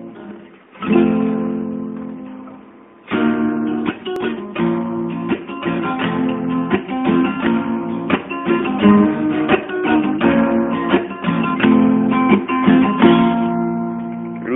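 Instrumental introduction of a song played on guitar. A chord is struck about a second in and left to ring and fade, then a steady run of plucked notes begins about three seconds in.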